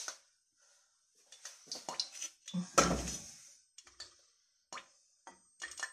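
Kitchenware clinking and knocking: a plate of fish set down on the gas stove with a heavy knock about three seconds in, then short sharp clicks of metal kitchen tongs.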